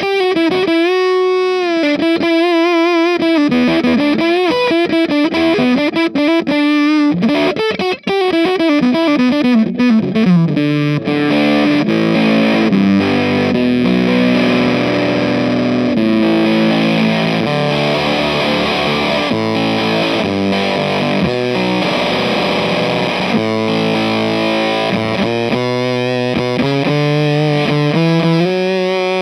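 Electric guitar played through an Earthquaker Devices Terminal fuzz pedal, a fuzz in the style of late-60s Japanese fuzz pedals. Distorted single-note lines with wide vibrato and a long downward slide come first, then about ten seconds in it changes to thick sustained fuzz chords, with separate notes again near the end.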